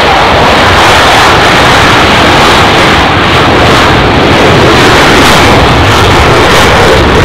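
Twin jet engines of an F/A-18F Super Hornet at takeoff power through the takeoff roll and lift-off: a loud, steady jet roar.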